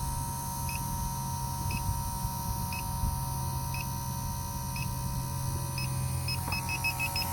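Electronic refrigerant leak detector beeping with short high beeps, about one a second, then speeding up to several a second near the end as it picks up refrigerant leaking at the suction service valve. Under it run a steady low hum and wind rumble on the microphone.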